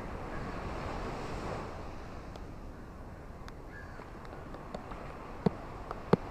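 Ocean surf washing on a beach in the rain: a steady rushing that swells over the first couple of seconds and then eases, with scattered sharp drip-like taps, two louder ones near the end.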